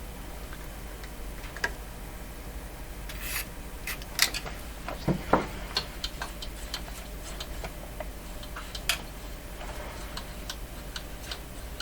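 Scattered light clicks, knocks and rubbing of hands and tools handling the oscilloscope on the workbench, a few sharper knocks about four to five seconds in and again near nine seconds, over a steady low hum.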